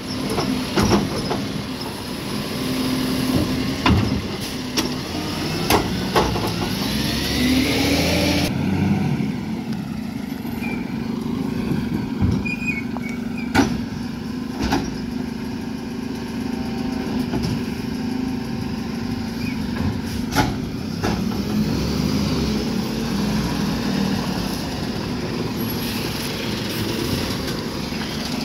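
Volvo FE side-loader garbage truck's diesel engine running, with rising hydraulic whines as the automated arm lifts and tips a wheelie bin, and sharp clunks from the arm and bin. After about eight seconds the sound shifts to the truck's engine running as it drives along and pulls up, with a few more clunks.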